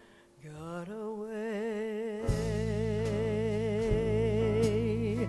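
A woman's voice holding one long sung note with a wide vibrato, backed by a jazz trio of piano, upright bass and drums. About two seconds in, the band comes in under her with a sustained low chord and a cymbal stroke.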